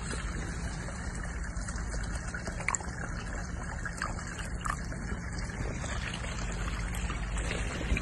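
Water trickling and pouring from one plastic cup into another plastic cup.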